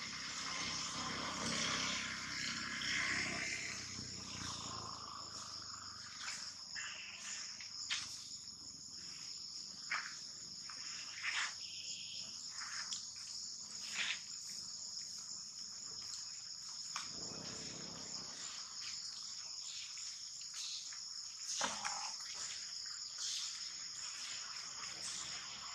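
Steady, high-pitched insect chorus droning without a break, with scattered short clicks and rustles over it.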